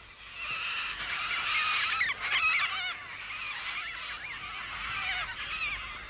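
A flock of Major Mitchell's cockatoos calling, many wavering, overlapping calls at once.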